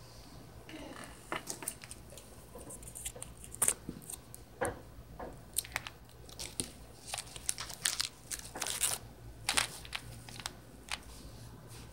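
Irregular crinkling and rustling of a bag and wrapped candy as candy is packed into the bag by hand, in a string of short, sharp crackles.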